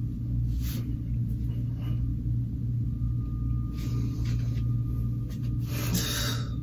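Steady low hum of a small room, with a faint steady high tone over it, and a few short soft whooshes of breath or movement while a man poses.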